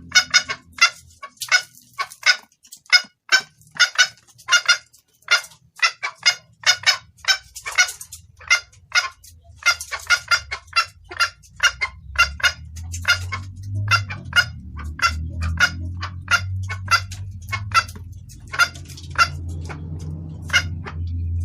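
Junglefowl hen calling in a fast run of short, sharp clucks, about two to three a second: the hen's call used to lure a junglefowl cock. A low steady hum rises in the background during the second half.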